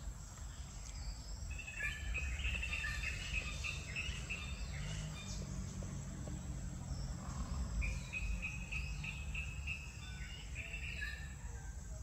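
Natural outdoor ambience: birds chirping in two runs of repeated phrases, one from about a second and a half in to about four and a half seconds, another around eight to ten seconds, over a steady high-pitched insect whine and a low, uneven rumble.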